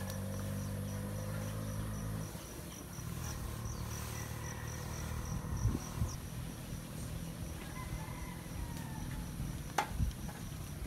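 An insect chirping in a steady run of quick high pulses, over a low hum that stops about two seconds in. Two short knocks come past the middle and near the end.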